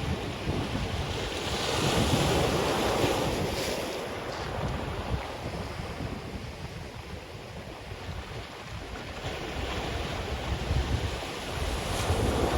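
Ocean waves breaking and washing up on a black sand beach, with sea wind buffeting the microphone. A wave surges up about two seconds in and another near the end.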